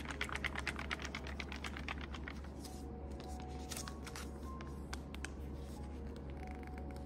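Plastic drink pouch crinkling and crackling in the hands as it is handled and opened: a fast run of sharp clicks for the first couple of seconds, then scattered single crackles, over soft background music.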